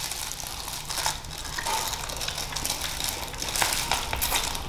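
Close-up chewing of a crunchy chicken foot: a steady run of crackling, crunching bites.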